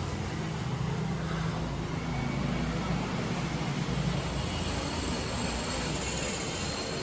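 Steady low rumble of passing vehicles, with no single event standing out.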